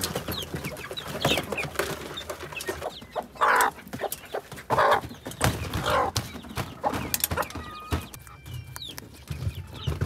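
Domestic hens clucking in short calls about a second apart, with faint high peeping from chicks.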